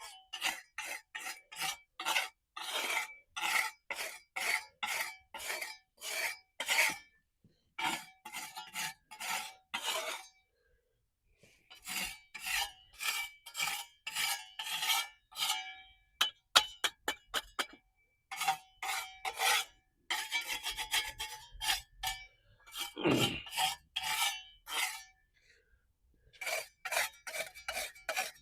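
Hand scraping of dried mortar lumps stuck to the pool's concrete surface, in quick repeated strokes about two a second, stopping briefly a few times.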